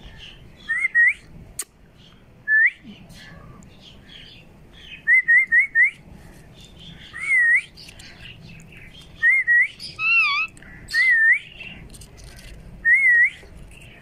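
Indian ringneck parrot giving short, clear whistled chirps, about a dozen in all, some single and some in quick runs of two to four, with one warbling note about ten seconds in.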